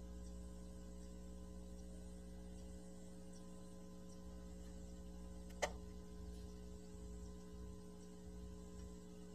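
Steady low electrical hum with faint room noise, and a single sharp click about five and a half seconds in.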